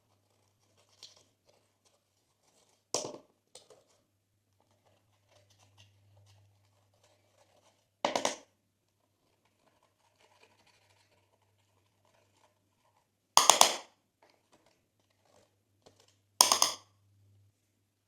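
Glossy slime being squeezed and stretched by hand, giving four loud crackly pops at irregular intervals with small sticky clicks in between.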